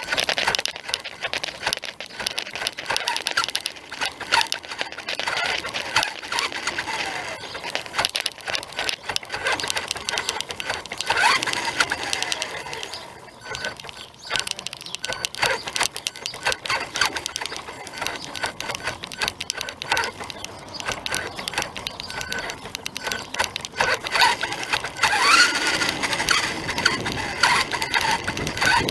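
Small electric RC car running, its motor and gears giving a rapid mechanical buzz and clicking, with a whine that rises and falls as it speeds up and slows a few times.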